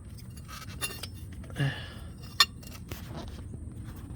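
A few scattered metallic clicks and clinks of a wrench being fitted onto the oil pressure switch, the sharpest about two and a half seconds in, over a low steady background hum.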